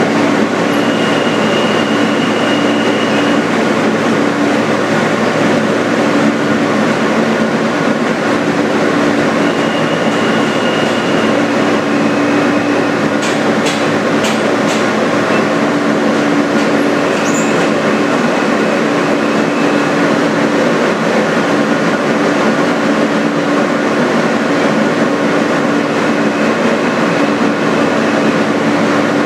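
Inside a 2008 Alstom R160A-2 subway car: the steady, loud rumble and hum of the train, with short high squeals several times and a few sharp clicks about halfway through.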